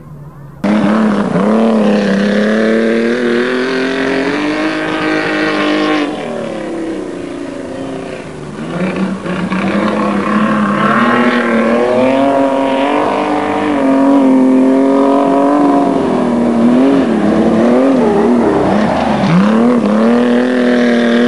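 Racing car engines running hard, their pitch rising and falling as the cars accelerate and back off through the turns. The sound cuts in suddenly about a second in, eases off for a few seconds near the middle, then builds again.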